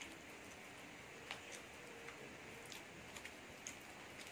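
Aluminium foil wrapper of an egg roll crinkling faintly in the hands as it is peeled back, a few scattered sharp crinkles over a steady hiss.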